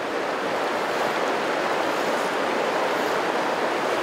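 Fast, shallow river running over a stony riffle: a steady, even rush of water.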